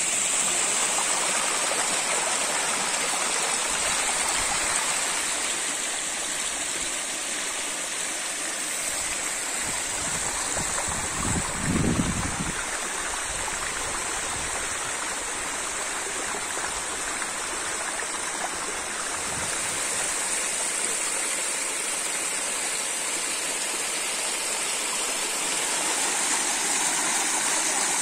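Mountain river running over rocks and small cascades, a steady rush of water. A brief low thump about halfway through.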